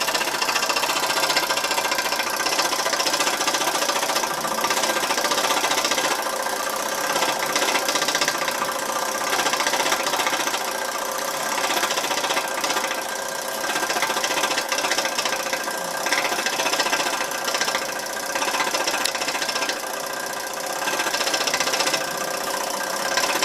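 Small 1960s MLI laboratory steam plant running steadily, its little steam engine knocking as it drives a wooden model of Leonardo da Vinci's helicopter, over a steady hiss.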